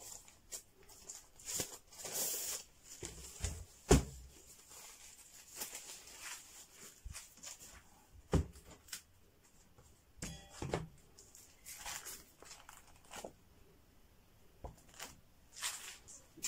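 Plastic and wrapping sheets rustling and crinkling as a portable monitor is unpacked by hand, with a few sharp knocks of the monitor and its cover on a wooden desk. The loudest knock is about four seconds in and another comes just past eight seconds.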